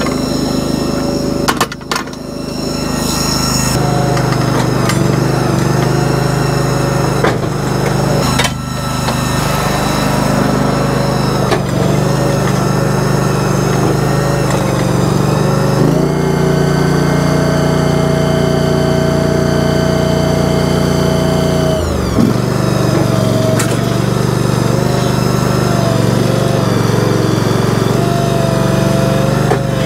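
An engine running steadily with a whine over it, stepping up in pitch about 16 seconds in and dropping back about six seconds later, as machinery comes under load. A few sharp cracks and knocks come in the first nine seconds.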